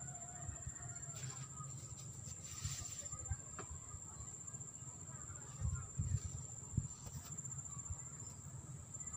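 Insects trilling in a steady high-pitched tone over a low background rumble, with a few soft thumps about six seconds in.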